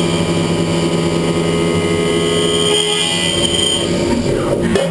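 Haas Super Mini Mill 2 CNC spindle driving a 50 mm Iscar face mill through a 1 mm-deep facing cut, a steady whine of several held tones. The tones drop away about four seconds in, and there is a sharp knock near the end.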